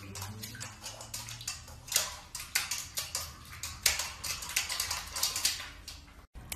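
A stainless steel dog bowl clinking and clattering irregularly, several sharp clicks a second, as a golden retriever puppy feeds with its muzzle in it. The sound cuts off suddenly near the end.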